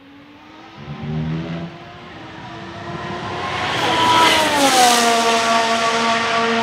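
Formula 1 car's 1.6-litre turbocharged V6 growing louder as it approaches, then passing by around four to five seconds in with its engine note dropping in pitch, and holding a steady note afterwards. A brief low rumble sounds about a second in.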